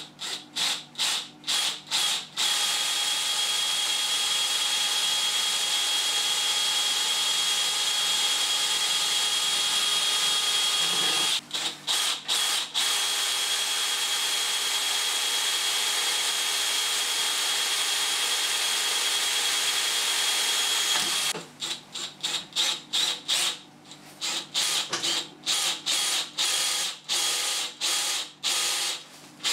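Cordless DeWalt drill drilling holes through aluminium chequer plate. It starts with short stop-start trigger bursts, then runs steadily with a high whine for several seconds, twice, and ends with a quick series of short bursts.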